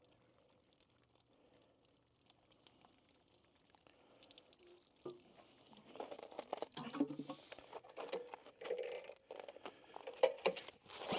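Hot water pouring and pattering over the head of a small air-cooled diesel engine, faint at first. About five seconds in, louder irregular rustling and clicks of hands handling the engine take over.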